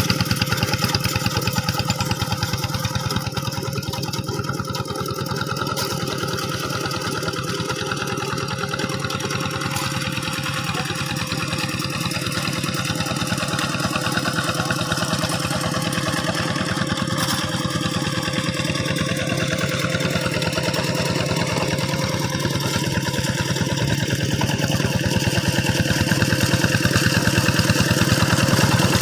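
Hand tractor's diesel engine running steadily with a rapid, even beat, getting a little louder near the end.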